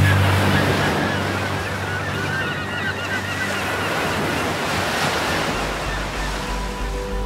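Surf washing onto a sandy beach, with wind, over soft background music. A steady beat comes into the music near the end.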